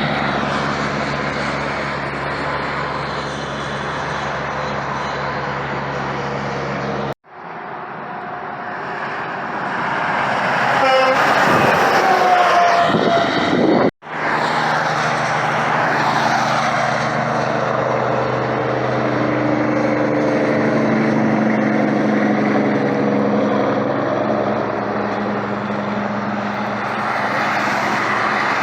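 Heavy vehicles passing close by, in three clips joined by abrupt cuts about 7 and 14 seconds in. The sound is loud and steady, with a pitch that falls as one vehicle goes by in the middle clip.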